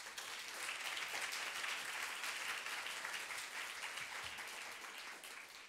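Audience applauding steadily in a lecture hall, fading near the end.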